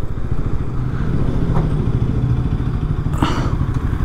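Bajaj Pulsar NS200's single-cylinder engine running steadily under the rider, with a short rushing noise about three seconds in.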